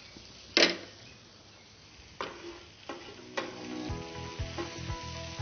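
Glass pan lid clinks sharply as it is lifted off a nonstick pan about half a second in, then a wooden spatula stirs jackfruit and potato pieces sizzling in the pan, knocking against it twice. Background music comes in about four seconds in.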